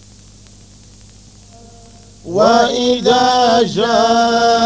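Quran recited in the Moroccan Filali style by a male voice: a quiet pause of about two seconds with only a faint hum, then the voice comes in on "wa-idha" with long held notes and small melodic dips.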